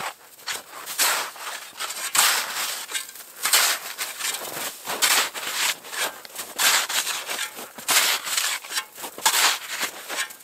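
Snow shovel digging into packed snow, each stroke a crunching scrape, repeated about once a second.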